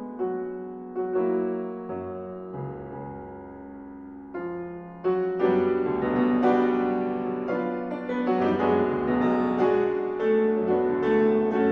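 Background keyboard music: a gentle melody of struck notes that fade, becoming fuller and louder about five seconds in.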